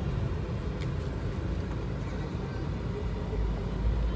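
Steady low engine and road rumble heard from inside a moving vehicle, with two faint ticks about a second in.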